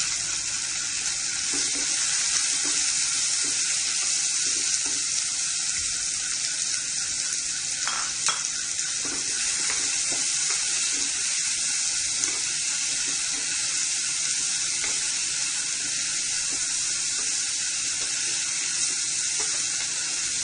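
Chopped onion sizzling in hot oil in a pan with cumin seeds, curry leaves and ginger: a steady hiss of frying, with a few light knocks partway through.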